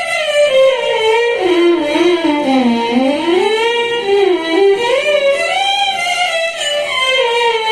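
Violin played through a Zoom G1Xon multi-effects pedal: a legato melody with vibrato that slides down to its lowest notes about three seconds in, then climbs back up and settles on a held note near the end.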